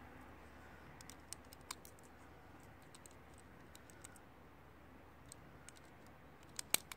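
Distant celebratory gunfire: scattered faint sharp cracks, a couple of louder shots about a second and a half in, and a close pair of the loudest shots near the end.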